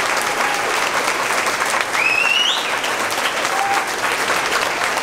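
Audience applauding steadily after a choral song, with one rising whistle about two seconds in.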